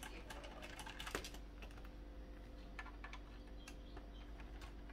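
Screwdriver turning out small screws from an Amiga 500 Plus motherboard and its metal shield plate: faint, irregular light clicks and ticks, with a sharper click about a second in.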